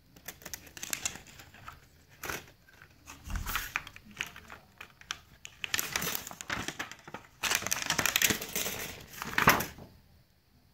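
Thin plastic films and sheets from a dismantled tablet screen being handled and pulled apart, crinkling and rustling in irregular bursts with small clicks, busiest and loudest in the last few seconds.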